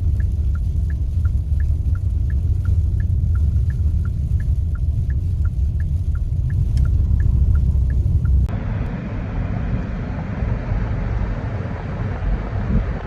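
Heavy low rumble of a vehicle or wind, with a steady ticking, about three or four ticks a second, alternating slightly in pitch. About eight and a half seconds in it cuts abruptly to a rushing hiss of wind or road noise.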